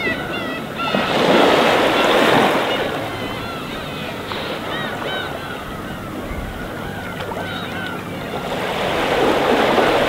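Calm sea waves breaking and washing in on the shore, two swells a few seconds apart, under a constant chorus of gulls calling in many short rising-and-falling cries.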